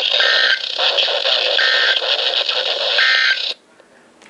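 NOAA Weather Radio end-of-message SAME data burst: three short two-tone digital warbles about 1.4 seconds apart over radio static. They mark the end of the Emergency Alert System warning. The static cuts off suddenly about 3.5 seconds in.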